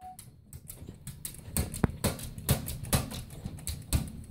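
Bernese Mountain Dog puppy pawing and mouthing at a mirror: a string of irregular knocks and taps of paws and teeth on the glass, the loudest about two seconds in.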